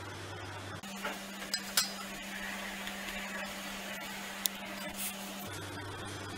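A few light clinks and taps of a stainless-steel mixer-grinder jar and its lid being handled, over a faint steady hum.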